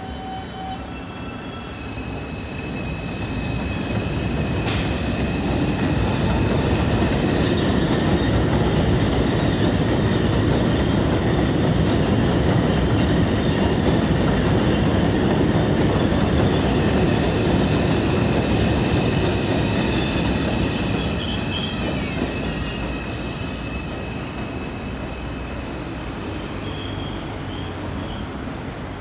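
A subway train rolling slowly past on an elevated steel track: a heavy rumble that builds over the first few seconds, holds through the middle and eases near the end, with a high steady squeal over it. A sharp click sounds about five seconds in.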